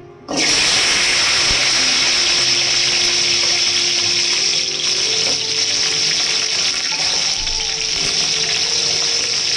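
Hot cooking oil sizzling as small onions and tomatoes go into the pan to fry. The loud sizzle starts suddenly about a third of a second in and then holds steady.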